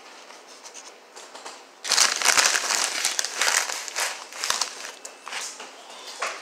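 Foil chip bag crinkling loudly as a hand digs in for chips, starting about two seconds in, with many sharp crackles.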